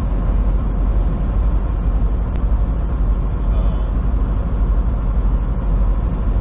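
Semi truck cab at highway speed: the steady drone of the diesel engine and tyres on the road, with one brief tick about two and a half seconds in.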